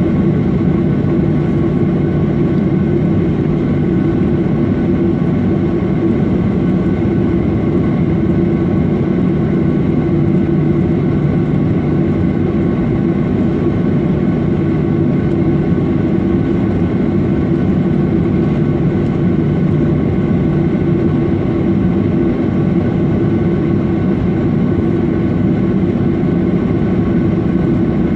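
Airliner cabin noise on the ground with the jet engines at idle: a steady drone with a few constant tones, unchanging throughout.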